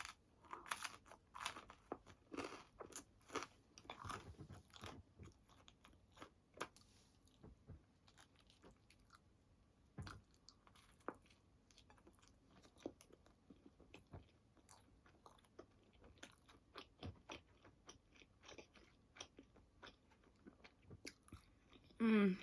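A person chewing and biting into pizza close to the microphone: a string of quiet, irregular crunches and mouth clicks.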